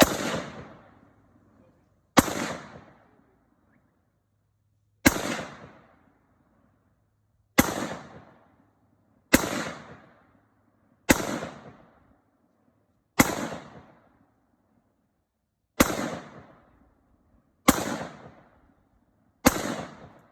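AR-15 rifle fired ten times in slow semi-automatic fire, single shots about two seconds apart, each loud crack followed by a short fading echo.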